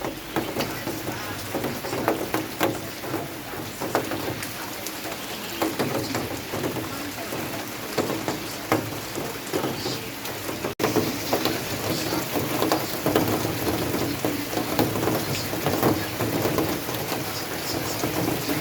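Rain falling steadily, with many separate drops tapping on a surface over the hiss of the downpour; a brief break about eleven seconds in.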